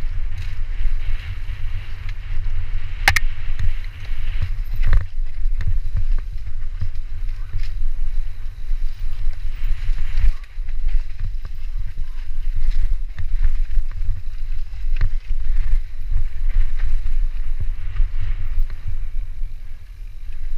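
Mountain bike descending a dirt singletrack at speed: heavy wind rumble on the camera microphone over the hiss of tyres on dirt and leaves, with the bike rattling and knocking over bumps, including a sharp knock about three seconds in and another about five seconds in.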